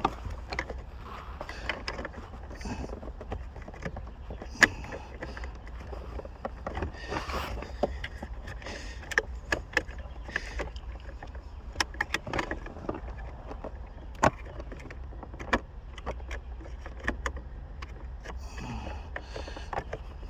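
Irregular sharp plastic clicks and small rattles as the shifter console trim of a 2006 Volvo S40 is pried off its retaining tabs, over a steady low hum.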